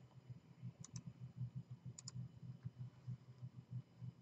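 Computer mouse double-clicked twice, about a second apart, with a faint low hum underneath.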